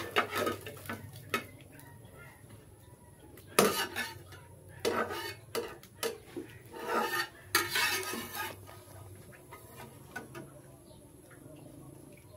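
Metal spatula scraping along a frying pan and clinking against a glass bowl as fried eggs are lifted out and dropped into the bowl, in several short irregular bursts.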